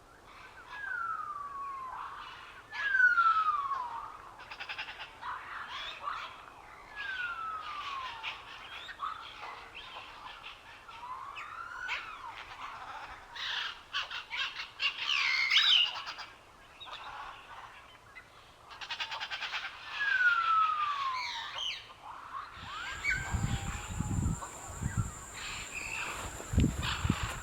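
Birds calling and chirping: a clear whistled note sliding down in pitch, repeated several times at irregular intervals, among shorter chirps and trills. About 23 seconds in, the sound changes to a steady high whine with low thuds.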